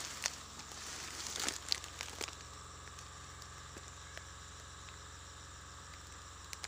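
Leaves and undergrowth rustling and crackling for the first couple of seconds as someone moves through the brush. Then a faint steady background with a few small ticks.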